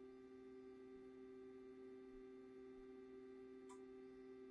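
Near silence: a faint steady electronic hum of two low tones, with one light click about three and a half seconds in.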